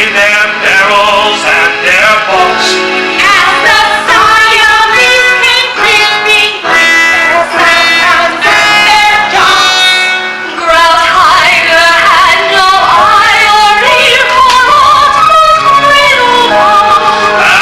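Stage-musical singing in an operatic style with a wide vibrato over instrumental accompaniment, with one long held high note about two-thirds of the way through.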